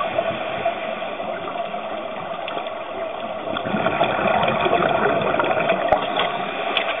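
Steady, muffled rush and gurgle of water heard through an underwater camera housing during a scuba dive, swelling about four seconds in, with two faint clicks near the end.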